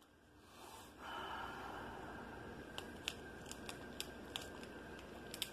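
Small plastic Tajin seasoning packet crinkling in the hands as it is handled: a handful of short, sharp crinkles and ticks over a faint steady hiss.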